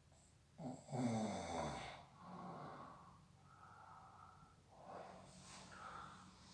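Snoring in sleep: a loud snorting breath with a falling pitch about a second in, then several softer breaths.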